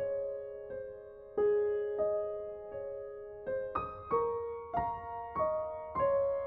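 Background music: slow, gentle solo piano, single notes struck one after another, each ringing and fading, the notes coming a little faster in the second half.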